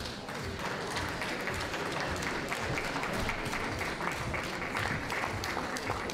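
Audience applauding: many hands clapping in a dense, steady run that starts at once and keeps going.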